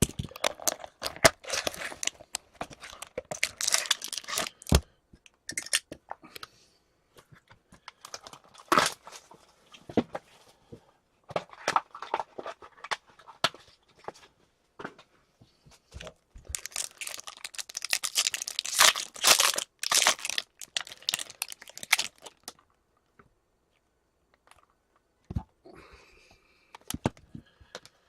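Packaging on a box of 2014-15 SP Game Used hockey cards being torn open: plastic and foil wrapping tearing and crinkling in bursts, with sharp clicks and taps as the box and cards are handled.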